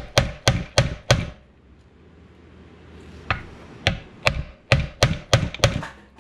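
Hammer blows on a roller guide wheel of a DeWalt wet tile saw's trolley, knocking the worn wheel off its stud: five quick strikes, a pause of about two seconds, then seven more.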